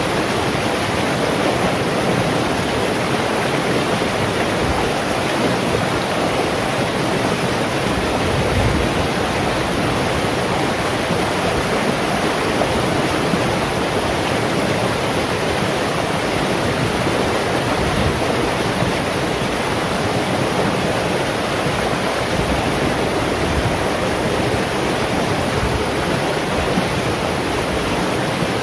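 Shallow rocky stream rushing over stones in small rapids: a steady, unbroken rush of water.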